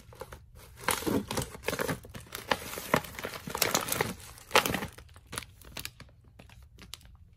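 Plastic candy bags and wrappers crinkling as they are handled: a dense run of rustles and crackles about one to five seconds in, then a few lighter rustles.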